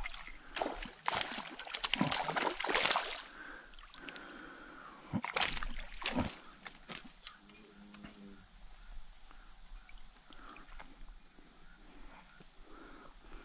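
Steady high-pitched insect drone from the creekside. Over the first three seconds, and once more about five to six seconds in, irregular splashing and clattering as a small sunfish is pulled from the water and handled.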